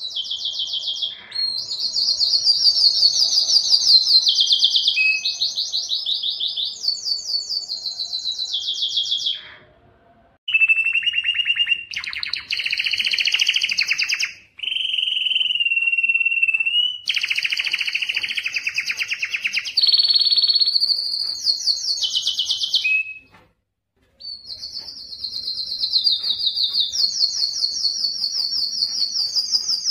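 Canary singing a long song made of rapid trills, each phrase held a second or two on a steady pitch before switching to the next, with two short breaks about ten and twenty-three seconds in.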